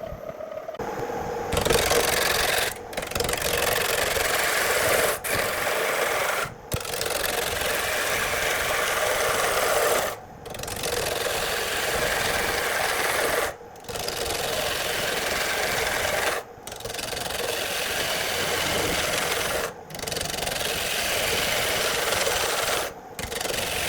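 Wood being rubbed with an abrasive, a continuous rasping scrub in long passes broken by short pauses every two to four seconds.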